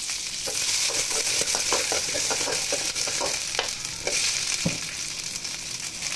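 Green chillies sizzling in hot oil in an aluminium kadai, with a metal spoon scraping and clinking against the pan as they are stirred, and one duller knock about four and a half seconds in.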